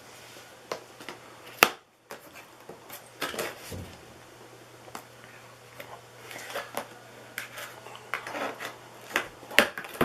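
Cardboard box and packaging being handled and opened: scattered clicks, taps and rustles. One sharp, loud click comes about a second and a half in.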